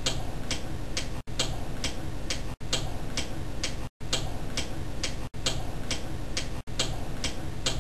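Steady clock-like ticking, about two ticks a second, over a low hum; the sound cuts out briefly about every second and a half.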